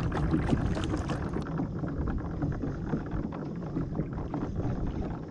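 Water lapping and small splashes against the hull of a pedal-drive fishing kayak as it is pedalled along, over a low steady rumble.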